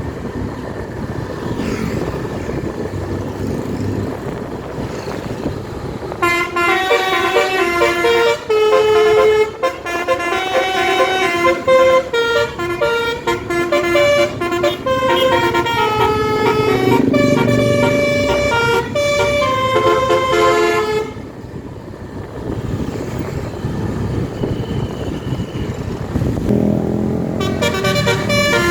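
Telolet basuri multi-tone air horn on a Kramat Djati tour bus, playing a quick melody of stepped notes for about fifteen seconds over road and engine noise. It falls silent for a few seconds, then starts playing again near the end.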